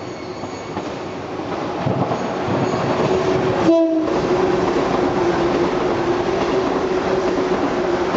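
Shinano Railway 115 series electric train running past at speed with loud wheel-on-rail noise, rising as it approaches. Its horn sounds a long steady note that drops in pitch as the train goes by, a warning given for a tunnel nearby.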